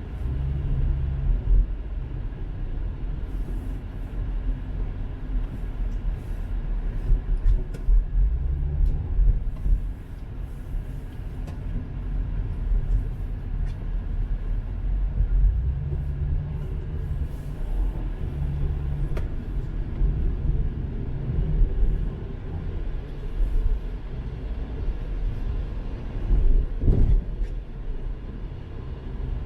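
Car driving, heard as a steady low road and engine rumble, with faint scattered ticks and a louder bump near the end.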